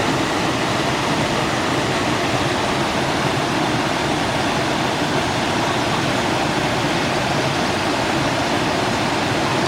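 Waterfall water rushing steadily, a loud, even roar of falling and running water.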